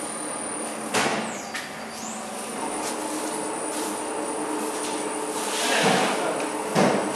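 Steady machinery hum in a workshop, holding a few constant tones, with a sharp knock about a second in and two louder, rougher swells of noise near the end.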